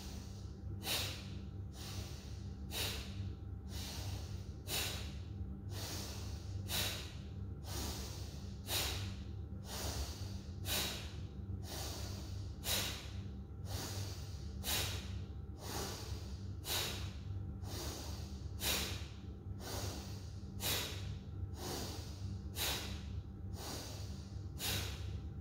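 Bhastrika bellows breath: a person breathing forcefully and deeply through the nose, inhalations and exhalations equally intense, in an even rhythm of about one breath a second, thirteen strokes in all. A low steady hum runs underneath.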